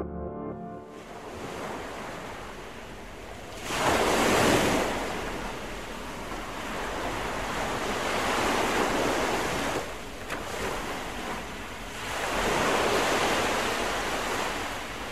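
Ocean surf: waves breaking and washing up the shore in a steady rush. It swells three times, loudest about four seconds in, then again around nine and thirteen seconds.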